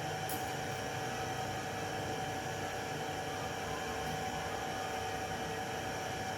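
Steady machine hum with an even hiss and a few constant tones, unchanging throughout.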